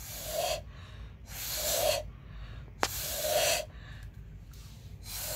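Short puffs of breath blown through a drinking straw onto wet acrylic paint to pop air bubbles, four times, about one every second and a half, with a single sharp click just before the third puff.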